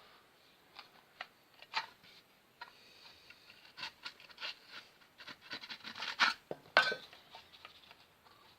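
A thin metal filler knife scraping and clicking against a wall socket box, in short irregular strokes with a louder cluster of scrapes near the end.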